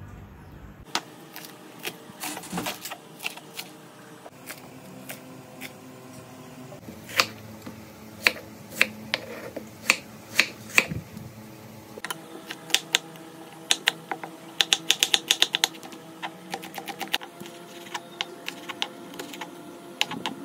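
Chef's knife chopping onion and small red chillies on a wooden cutting board: irregular sharp knocks of the blade hitting the board, with a quick run of rapid chops a little past two-thirds of the way through.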